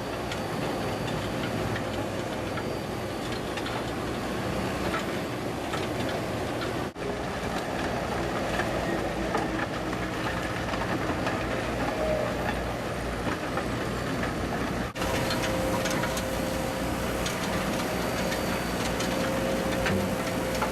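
A Drumcutters EX 60 HD drum cutter on a Liebherr A 904 excavator milling lean concrete: a steady grinding rattle over the excavator's diesel engine running under load. The sound cuts out briefly twice.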